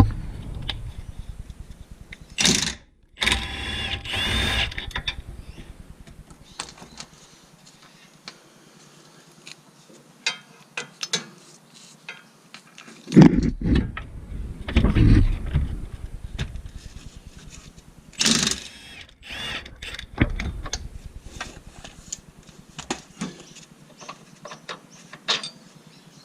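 Wrench work on a Honda Civic's front lower control arm: metal clicks and clinks as 19 mm bolts are undone, with a few short louder mechanical bursts and some heavier knocks about halfway through.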